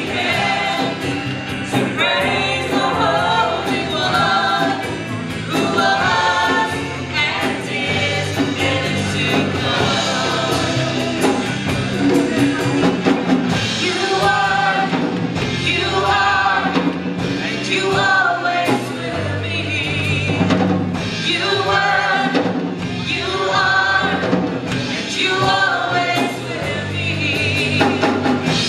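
Live praise band playing a worship song: a woman sings lead into a microphone, with wavering held notes, over electric guitar and a drum kit.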